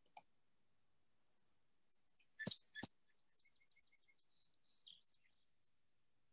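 Song sparrow singing: two loud, clear opening notes about two and a half seconds in, followed by a fast, faint trill and a few softer notes, ending at about five seconds.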